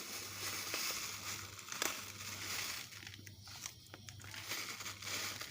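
Plastic packet of jelly crystals crinkling as it is emptied into a pan of boiling water, over a steady hiss from the boil.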